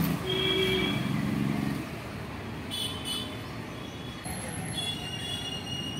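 Street traffic: a motor vehicle's engine is loud for the first two seconds, then fades into a steady traffic hum, with a few brief high-pitched tones in the middle and near the end.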